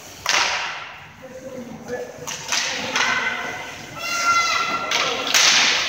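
Ice hockey play on an indoor rink: skate blades scraping the ice in several short hissing bursts, with thuds of stick and puck and distant voices calling out.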